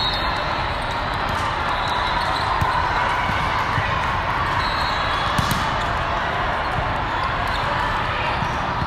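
Volleyballs being hit and bouncing in a large hall full of volleyball courts, over a steady hubbub of players' voices. The sharpest hit comes about five and a half seconds in.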